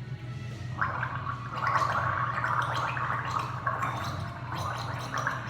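A person gargling water in the back of the throat, a bubbling gurgle that starts about a second in.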